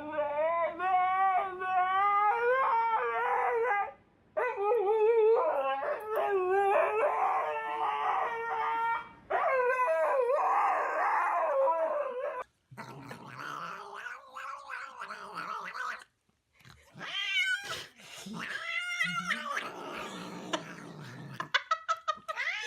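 A pet animal making long, wavering, drawn-out yowling calls, several in a row. About twelve seconds in they give way to quieter, rougher animal noises.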